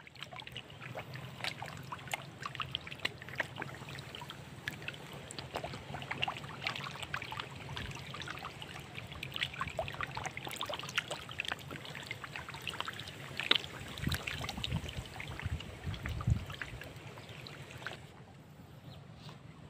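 Fish thrashing in shallow muddy water: many quick small splashes and drips, with a low steady hum underneath for the first part and a few dull thuds later on. It gets quieter near the end.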